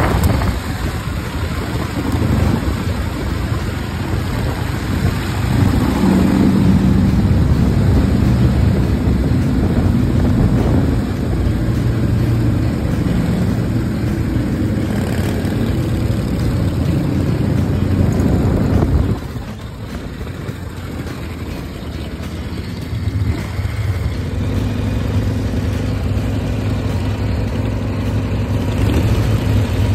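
V-twin chopper motorcycles riding, the engines running under way with the note rising and falling. About two-thirds through the sound drops off, and near the end it settles into a steady idle.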